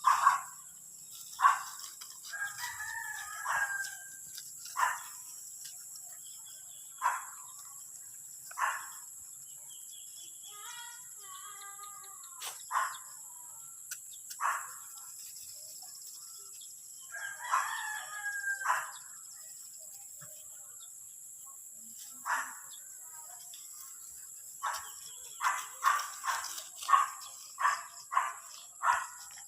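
Animal calls: repeated short, sharp calls every second or two, two longer calls with a rising and falling pitch, and a quicker run of short calls near the end.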